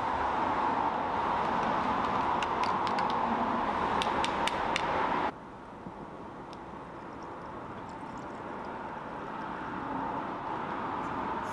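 Steady hiss with a few light plastic clicks, then an abrupt drop to a quieter sound of liquid being poured from a plastic measuring jug into the neck of a foam cannon bottle, slowly growing louder as the bottle fills.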